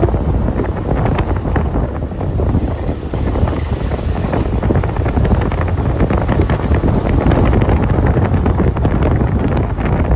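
Wind buffeting the microphone in a moving car, over the steady rumble of the car on the road.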